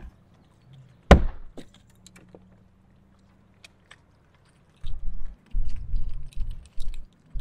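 One sharp knock about a second in, from gear being handled on a bass boat's deck, then a few faint light ticks. From about five seconds in, irregular low rumbling gusts of wind buffet the microphone.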